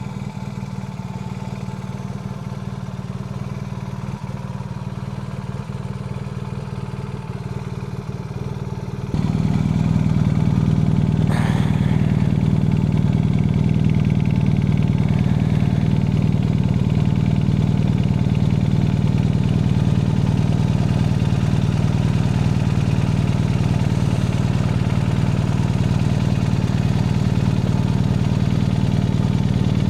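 BMW R1200 GS Adventure's boxer-twin engine running through a newly fitted GRmoto slip-on exhaust at steady revs. It gets abruptly louder about nine seconds in and then holds steady.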